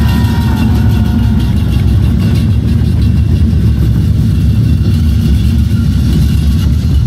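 Chinese folk drum troupe playing large barrel drums in a fast, unbroken roll, with cymbals clashing over it.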